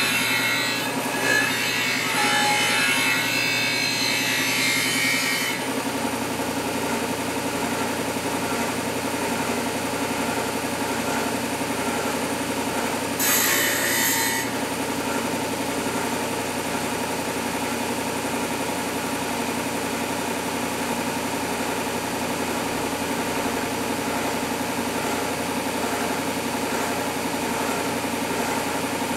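Bench belt-and-disc sander running steadily while a steel knife blade is ground on it, the grinding hiss lasting about the first five seconds and coming back briefly near the middle. The rest of the time the sander's motor runs with nothing against it.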